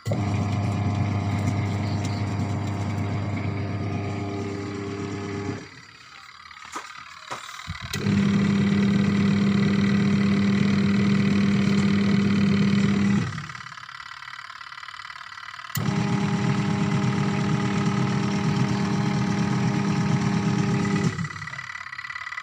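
Washing machine motor humming in three runs of about five seconds each, stopping for a couple of seconds between runs, with a few clicks in the first pause. The on-off pattern fits a wash motor being cycled through its newly fitted manual controls.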